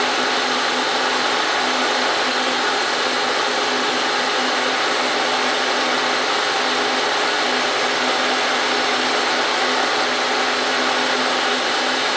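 Milling machine spindle running steadily with a constant hum as a small end mill in a Volstro rotary milling head takes a light cut in aluminum, the head being turned by hand.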